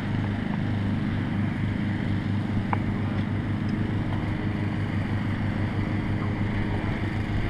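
AgustaWestland AW139 helicopter running on the ground, its twin turbine engines and rotor making a steady low rumble with a rapid, even flutter.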